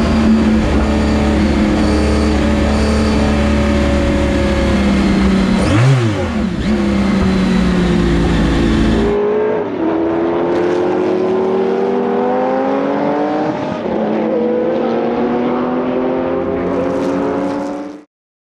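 Porsche 917 LH's air-cooled flat-twelve racing engine under hard acceleration, first heard from the cockpit with a quick dip and rise in pitch about six seconds in. From about nine seconds it is heard from trackside, climbing in pitch through several gear changes. It cuts off suddenly near the end.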